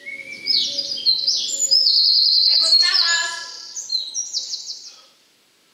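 Bird-like chirping and whistling: many quick, high notes stepping up and down in pitch, loud through the first three seconds, then thinning out and stopping shortly before the end.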